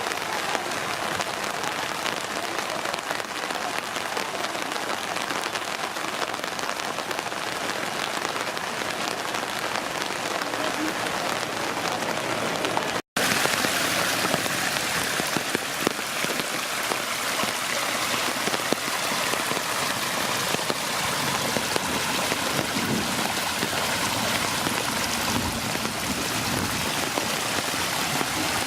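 Steady rain falling and spattering on hard surfaces. About halfway through there is a brief break, then the rain is louder, with more hiss.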